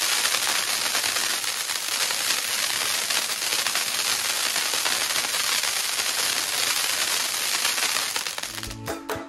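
Firecrackers crackling densely and without a break, a steady hiss of rapid pops. Near the end the crackling fades and guitar music comes in.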